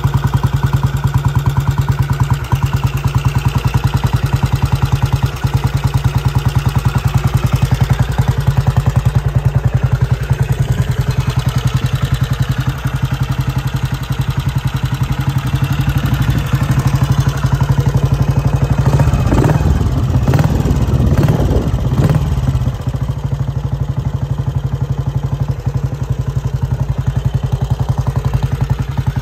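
Royal Enfield Model G's single-cylinder four-stroke engine ticking over with an even beat, given a brief rise in revs about twenty seconds in before settling back to idle.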